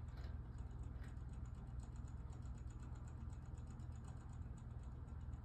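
Self-setting, radio-controlled analog wall clock advancing its hands rapidly while it sets itself: a fast, even run of faint ticks, about eight a second, over a steady low hum.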